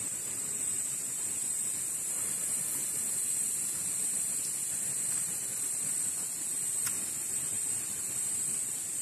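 Steady high-pitched drone of insects in the surrounding vegetation, unbroken, over a soft even hiss.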